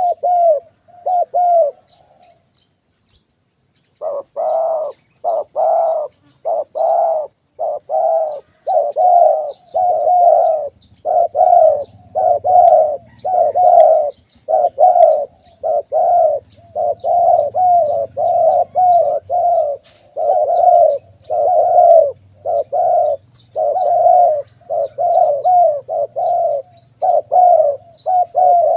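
Spotted doves cooing, a rapid, continuous series of short coos, pausing for about two seconds shortly after the start.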